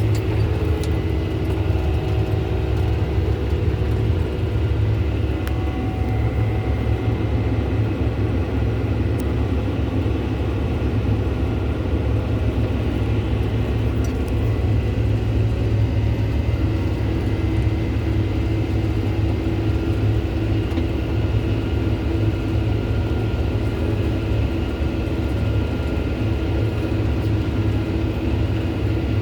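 John Deere tractor's diesel engine running steadily under load, driving a Triton rotary mower through tall, heavy grass: a deep continuous rumble with several steady whining tones above it.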